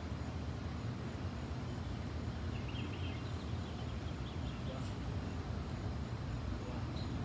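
Steady low outdoor background rumble, with a few faint high chirps between about two and four and a half seconds in.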